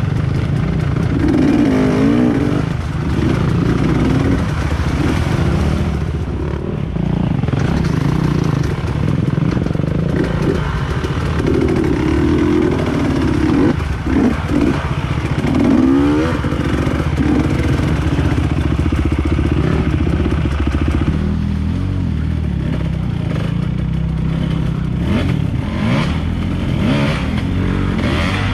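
Off-road trail motorcycle engine running and revving, its pitch rising and falling as the throttle opens and closes, with a few clattering knocks near the end.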